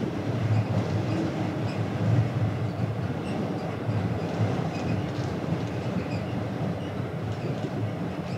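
Steady low rumble aboard a ferry under way: the ship's engine drone and hull vibration, with faint scattered light clicks and rattles.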